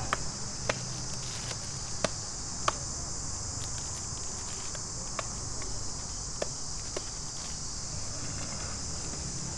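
Steady high-pitched drone of insects, broken by sharp, irregularly spaced knocks of a knife chopping into palmyra palm fruit, about seven in all.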